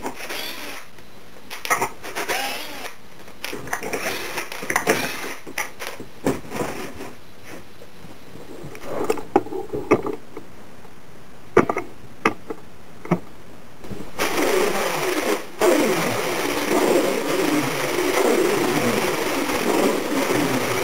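Cordless drill/driver running in short bursts as screws are driven into the wooden stretcher-bar corners, among sharp clicks and knocks of wood and screws being handled. About two-thirds in, a louder, steadier noise takes over.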